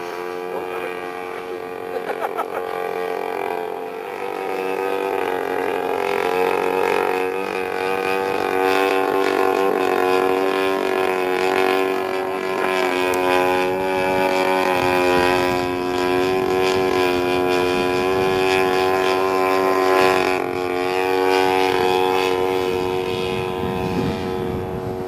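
Gasoline engine of a 1/3-scale Aeronca Champ RC airplane running with its propeller at a fairly steady speed. The pitch rises a little in the first few seconds and then holds.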